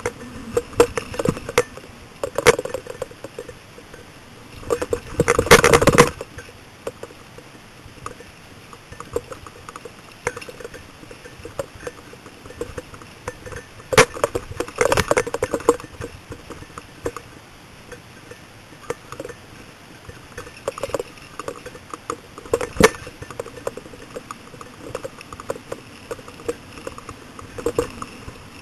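A mountain bike rattling and clattering over a rough dirt trail, with scattered clicks and a jangle of loose metal. There are heavier jolts about five seconds in and again about fourteen seconds in, and a sharp knock near the end.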